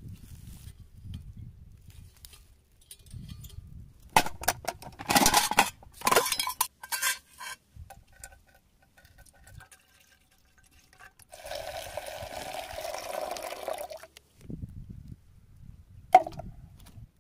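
Metal clinks and clicks as a camp gas stove and an aluminium mess tin are handled. A few seconds later comes a steady pour of a milky liquid, coconut milk, into the mess tin for about two and a half seconds, then one more clink near the end.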